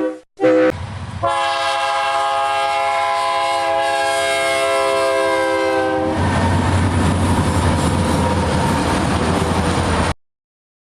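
Train horn sounding two short blasts and then one long blast of about five seconds. Then comes the steady rumble and rail clatter of the train, which cuts off abruptly near the end.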